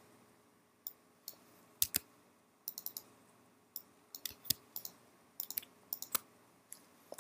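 Clicks of a computer mouse and keyboard keys, in short irregular clusters.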